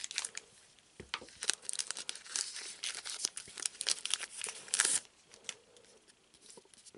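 A foil trading-card booster-pack wrapper crinkling and tearing as it is ripped open, a dense crackle that stops about five seconds in.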